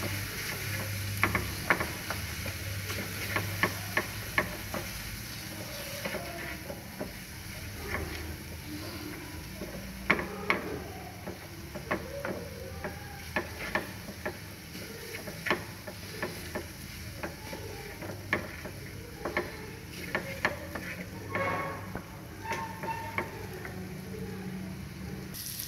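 A spatula scraping and knocking against a metal frying pan, stirring onion-tomato masala, with irregular clicks over a faint steady sizzle of the frying mixture.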